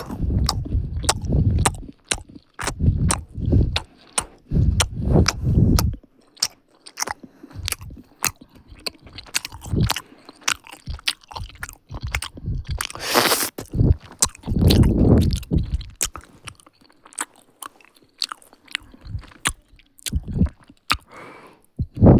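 Close-miked eating of chocolate: crisp bites and wet chewing with many sharp mouth clicks, and several louder low chewing stretches of a second or two.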